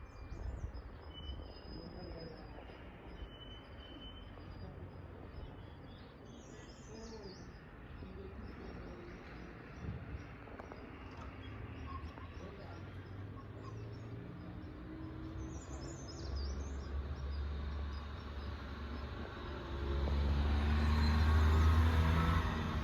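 Birds chirping now and then over a steady outdoor background. In the last several seconds an engine comes closer and grows loud, loudest near the end.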